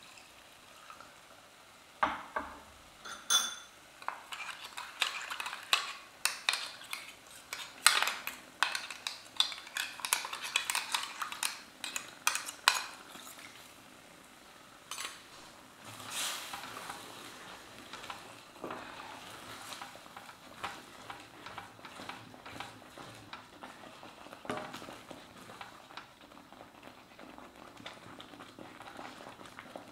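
A spoon stirring food in a cooking pan, clinking and scraping against it, over a faint sizzle of frying. The clinks start about two seconds in, come thick and fast for ten seconds or so, then thin out to lighter taps.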